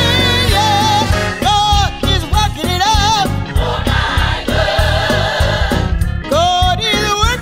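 Gospel choir music: voices singing sustained, wavering notes over a band with a steady low bass.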